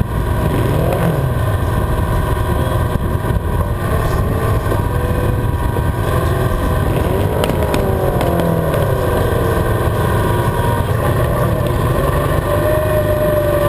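Small pulling-tractor engine running loud and steady close by, its pitch rising and falling a few times as it is throttled. There are a few sharp clicks about halfway through.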